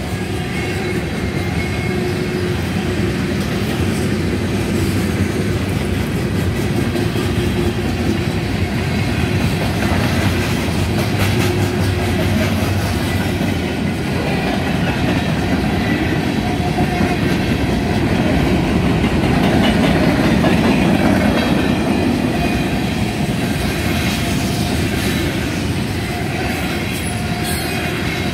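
Freight cars (covered hoppers, a flatcar and tank cars) rolling past: steel wheels clacking over the rail joints in a steady loud rumble, with faint wheel squeal coming and going.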